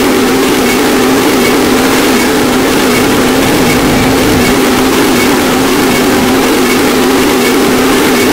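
Harsh noise music: a loud, unbroken wall of distorted noise, with a thick droning band low in pitch under a dense hiss, holding steady without a break.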